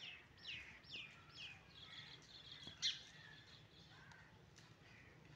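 A bird chirping faintly in quick high calls that fall in pitch, four in a row about twice a second. Scattered chirps follow, with one sharper chirp about three seconds in.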